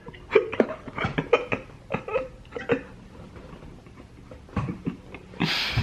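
A run of short, breathy vocal bursts, like stifled laughter or coughs, with a longer breathy exhale near the end.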